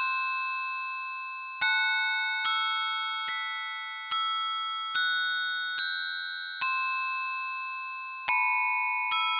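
Background music: a gentle melody of bell-like struck notes, such as a music box or glockenspiel, with one note about every 0.8 s, each ringing and fading before the next.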